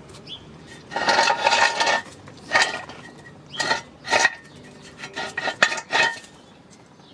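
Metal tools clattering and clinking in about six short bursts, each with a brief ringing tone, the longest about a second in.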